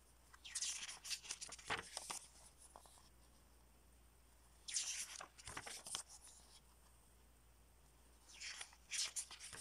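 Pages of a paper CD lyric booklet being turned by hand: three separate bursts of crackly paper rustling, each lasting about a second or more, the first just after the start, one in the middle and one near the end.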